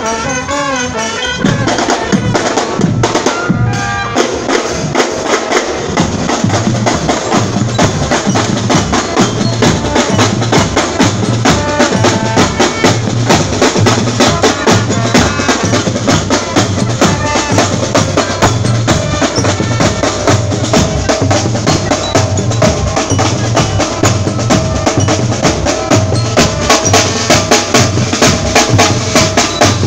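Marching band of snare drums, bass drums and brass (trumpets, trombones, sousaphone) playing: the drums keep a steady marching beat under a brass melody. The drums come in louder about a second and a half in.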